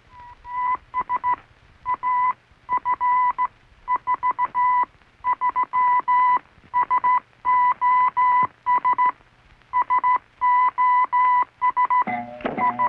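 Cartoon horn sounded as a warning signal to the animals: one high, steady beep keyed on and off in short and long pulses, like Morse code.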